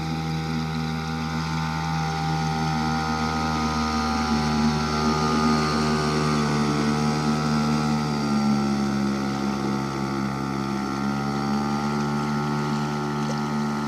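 Outboard motor on an inflatable PVC boat running at steady cruising speed as the boat passes. It is loudest about halfway through as the boat draws level, with a slight drop in pitch as it goes by.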